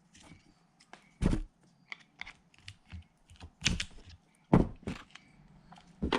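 Close handling noises from opening and squeezing out two-part araldite epoxy: four sharp clicks and knocks among fainter small taps and rustles.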